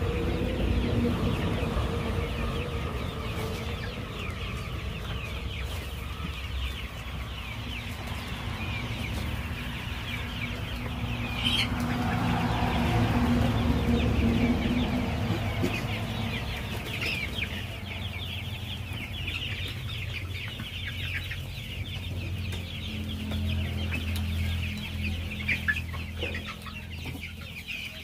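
A flock of chickens clucking and calling continuously, many birds at once, over a steady low rumble.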